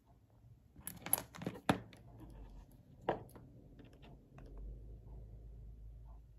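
Small cutters snipping thin lighting wire: several sharp clicks in the first two seconds and one more about three seconds in, with faint handling sounds between.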